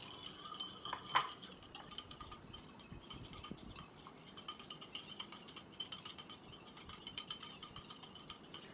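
Small wire whisk beating instant coffee, sugar and hot water by hand in a ceramic bowl for whipped dalgona coffee, the wires clinking rapidly against the bowl several times a second, with one louder clink about a second in.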